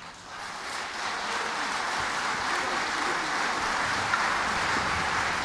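Concert hall audience applauding, building up over the first second into steady clapping.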